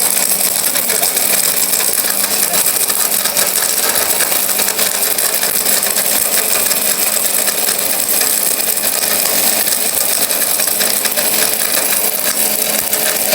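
1000-watt, 24000 rpm mixer grinder running steadily at speed, its six blades grinding whole dried turmeric pieces that rattle against the stainless steel jug.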